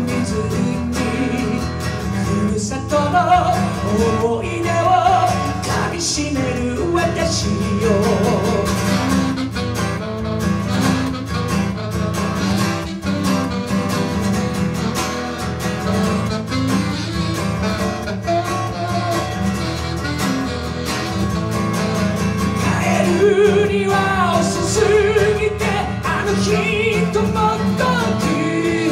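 A man singing a melody over guitar accompaniment, his voice most prominent in the first third and again near the end.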